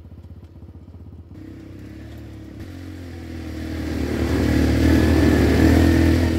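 Sport quad ATV engine running as the machine approaches, growing steadily louder and loudest near the end.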